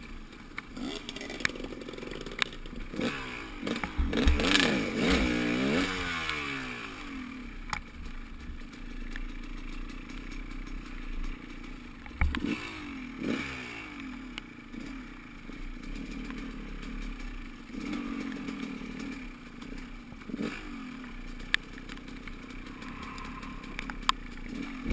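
Motorcycle engine running and revving, its pitch rising and falling several times as it speeds up and shifts, over a steady rush of riding noise.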